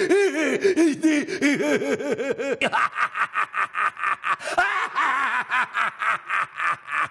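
A man's voice doing a cartoon character's rapid, staccato cackle. It is low-pitched at first and about a third of the way in jumps to a shrill falsetto.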